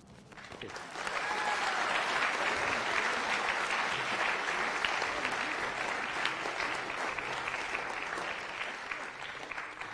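Audience applauding, the clapping swelling over the first second, holding steady, then thinning out near the end.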